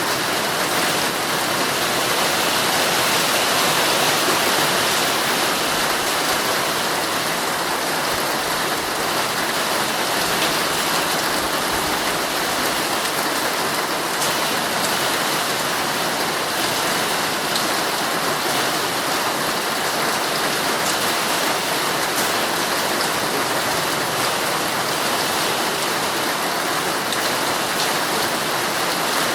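Heavy rain falling steadily on a tent, a dense even patter with occasional sharper drop ticks.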